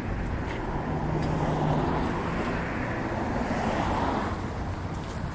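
Road traffic noise over a steady low engine hum, with one vehicle passing that swells over a couple of seconds and fades.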